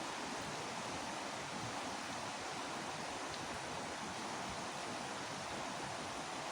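Steady rush of flowing stream water, with no breaks or distinct events.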